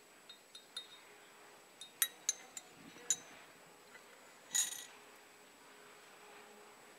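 Metal teaspoon stirring coffee in a small china cup, ticking against the sides in a string of light clinks over the first three seconds, then a single louder ringing clink of china about four and a half seconds in.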